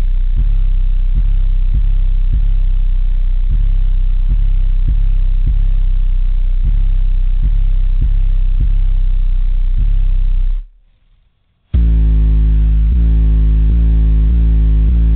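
Bass-heavy rap music played loud on a car's subwoofer system inside the cabin, deep bass notes with a beat about twice a second. The music cuts out for about a second near the end, then comes back.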